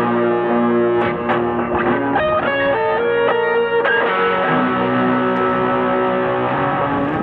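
Electric guitar played through effects: picked notes for the first few seconds, then a held, layered chord that sustains and swells into a dense wash of tone.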